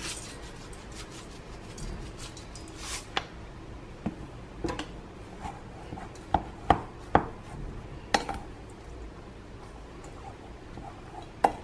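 White plastic rice paddle scraping and tapping against a stainless steel mixing bowl while cooked rice is mixed, with scattered knocks and three sharp ones close together a little past the middle.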